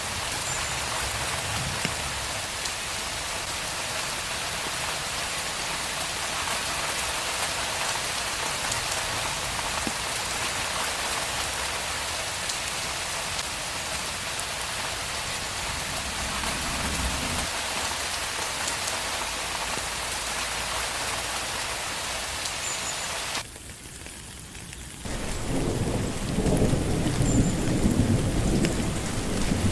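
Steady rain hissing down in a dense, even wash. About three-quarters of the way through, the rain abruptly falls quieter for a second or two. Then loud, low thunder rumbles in under the rain for the last few seconds.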